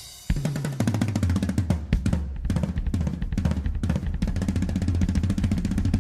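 Music played on a drum kit: rapid snare and bass drum strikes over a sustained bass line, starting about a third of a second in.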